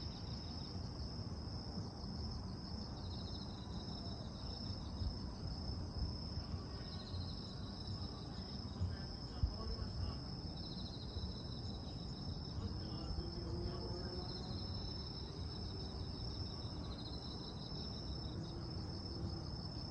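Insects chirping: a steady high-pitched trill runs throughout, with short pulsed trills repeating every few seconds, over a steady low rumble.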